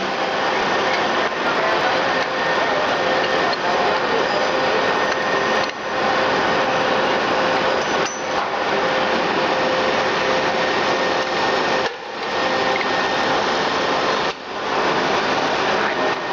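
Rice-processing machine running with a dense, steady mechanical noise and a few held humming tones, briefly dropping away four times.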